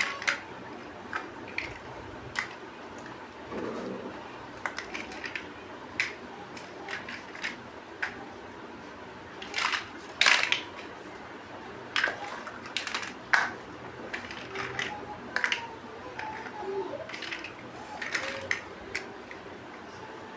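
Plastic Lego bricks being handled and pressed together: irregular clicks and snaps, the loudest about halfway through.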